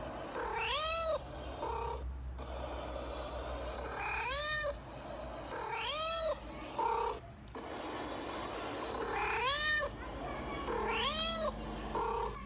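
A cat meowing over and over: five drawn-out meows that rise and fall in pitch, each about half a second long, with three shorter, clipped calls between them.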